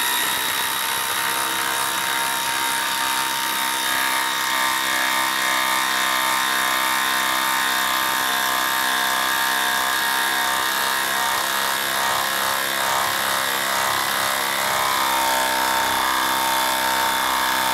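Craftsman brushless impact driver on speed 3 hammering a 6-inch lag screw into a log round, running under load without a break as a steady, pitched buzz.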